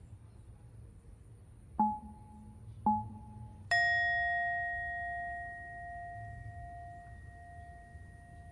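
A bell chime: two short dings about a second apart, then a third, brighter strike that rings on and slowly fades over several seconds.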